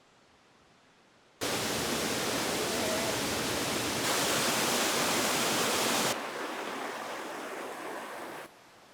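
Steady rushing noise that comes in abruptly after a quiet second and a half, steps louder and then softer at sudden cuts, and stops sharply near the end.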